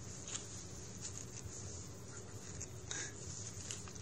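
Soft scuffs, scratches and rustles of a cat rolling on carpet, clawing and biting at a catnip sock, over a steady low hum.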